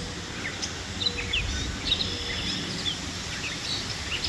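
Small birds chirping, short high calls scattered throughout, over a faint steady outdoor background rumble.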